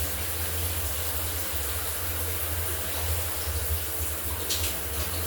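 Shower water running steadily, an even spray hiss over a low rumble, with one short higher hiss near the end.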